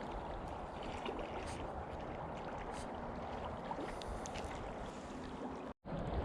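River water flowing steadily, with a few faint clicks; the sound cuts out for a moment near the end.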